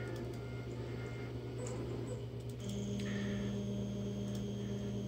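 3D printer running: a steady low hum, joined about two and a half seconds in by a second steady, higher tone that holds, with a few faint clicks.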